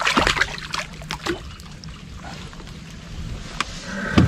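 A small wels catfish thrashing and splashing at the water's surface as it is hauled up on a fishing line. The splashing dies down after about a second, leaving softer water noise, and a single thump comes near the end as the fish is brought up against the boat.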